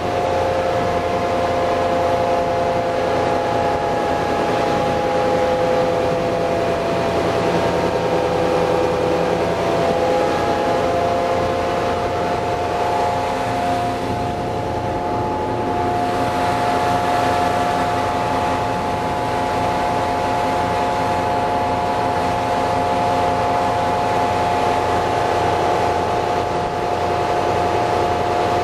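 Roots-blown EMD 16-567CCL two-stroke V16 diesel of a single-screw tug running steadily under way. Its pitch eases down slightly over the first several seconds, then holds steady.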